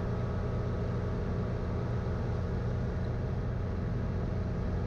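Guimbal Cabri G2 helicopter in level cruise, heard from inside the cabin: a steady low drone of engine and rotors with no change.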